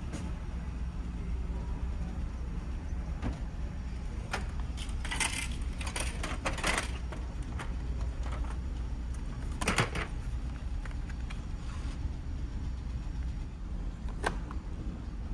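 Clicks and rattles of a vending machine's pickup flap being pushed open and a boxed item pulled out, with a sharper clack a few seconds later. Under it the ferry's steady low rumble.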